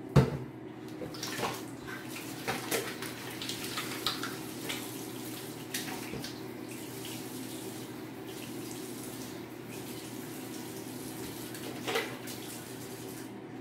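Bathroom sink faucet running steadily as hands are washed and rubbed under the stream, with scattered splashes. A sharp knock comes just at the start.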